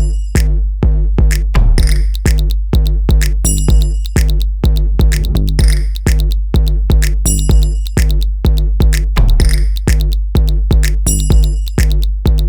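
Electronic background music with a steady drum-machine beat and heavy bass.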